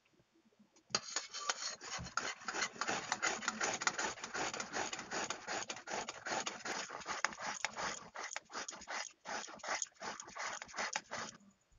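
Peeled bottle gourd being grated on a handheld metal grater: a quick, continuous run of rasping strokes that starts about a second in and stops shortly before the end.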